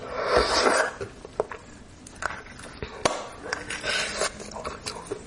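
Close-up mouth sounds of a person eating bone marrow: a long noisy slurp in the first second, another shorter one about four seconds in, and wet smacks and clicks between them.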